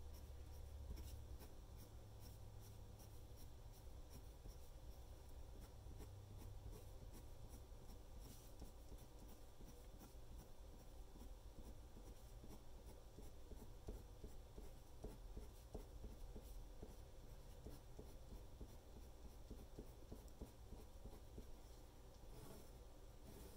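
Faint scratching of a fine drawing pen on paper: many quick short strokes, the little lines that give a drawn cactus its spiky texture.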